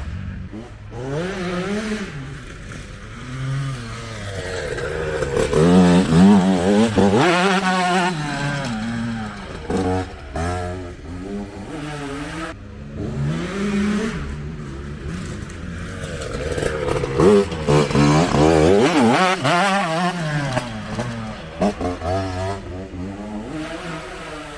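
TM Racing MX 125 two-stroke motocross bike on track, its engine revving up and falling back again and again with short breaks as the throttle is chopped and gears change. It gets louder twice, about a quarter and about three-quarters of the way through.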